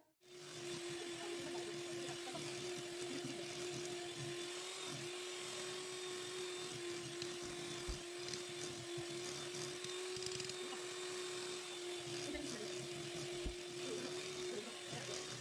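Electric hand mixer running at a steady speed, its beaters whisking a thick, creamy mixture in a glass bowl, with a constant motor whine.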